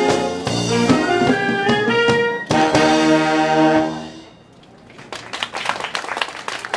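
Concert wind band playing the closing bars of a piece, ending on a long held brass chord that is cut off about four seconds in. Audience applause follows about a second later.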